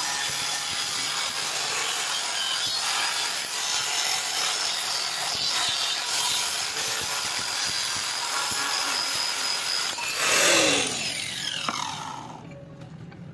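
Angle grinder with a flap disc grinding a steel axe head, throwing sparks. About ten seconds in, it surges briefly, then is switched off and spins down with a falling whine.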